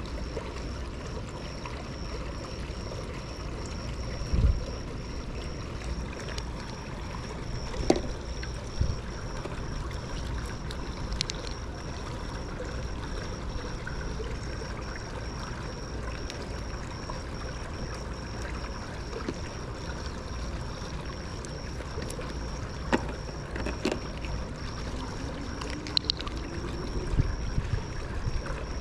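Steady rush of moving water with a few light knocks and clicks, and a faint steady high whine underneath.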